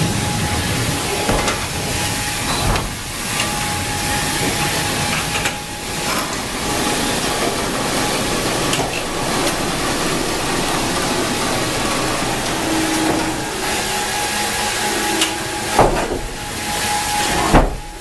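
Sawmill machinery running in a band sawmill hall: a loud, steady hiss-like noise with a thin constant whine, and two knocks near the end.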